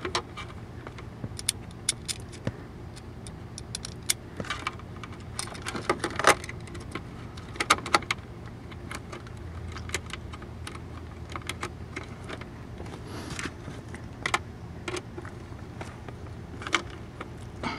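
Scattered small clicks and clinks of hardware being handled as a relay is mounted in a truck's center console, some coming in quick clusters, over a faint steady low hum.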